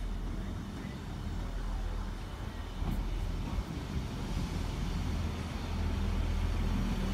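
Class 158 diesel multiple unit drawing into the platform, its underfloor diesel engines running with a steady low hum that grows louder as it nears.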